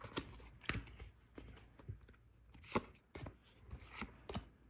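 Pokémon trading cards being handled and flipped through one at a time: light, irregular clicks and slides of card stock, roughly two a second.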